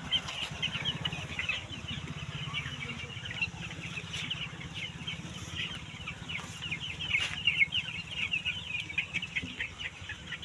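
A flock of 11-day-old chicks peeping continuously in a dense chorus of short, high chirps, over a steady low hum.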